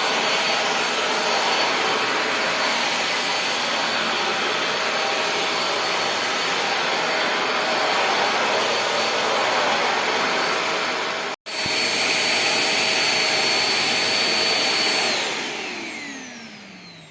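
Handheld cordless vacuum cleaner running with a steady rushing of air and a motor whine, cut off for an instant about eleven seconds in. Near the end it is switched off and the motor whine falls in pitch as it spins down.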